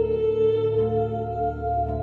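Ambient background music of long, sustained held tones; a higher note comes in shortly before the middle.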